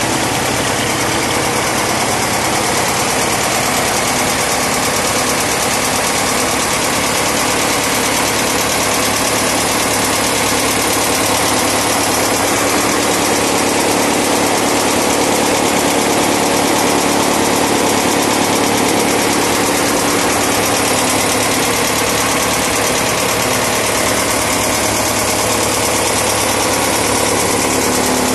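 Tractor engine running steadily at idle, with an even low hum and no change in speed.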